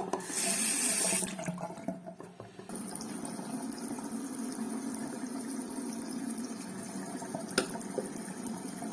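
Water running from a single-lever mixer tap into a sink. A loud hissing spurt comes in the first second, then the flow settles to a steady stream from about three seconds in. A single click comes near the end.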